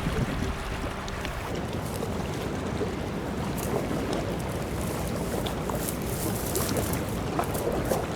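Tagus River water rushing at the Belver dam: a steady rushing noise with small splashes and crackles scattered through it.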